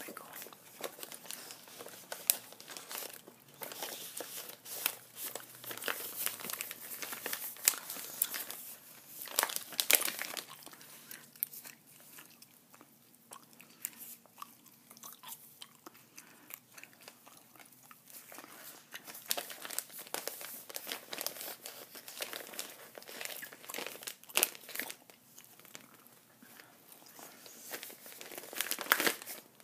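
Paper mailer envelope and sticker packaging crinkling and crackling as they are handled close to the microphone, with gum chewing mixed in. The crinkles come in a continuous run of sharp crackles, with louder flurries around ten seconds in and again near the end.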